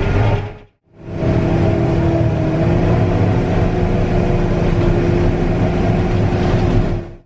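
Heavy farm machinery engine running steadily under load, with a steady whining tone over a low drone. It fades out and back in just under a second in.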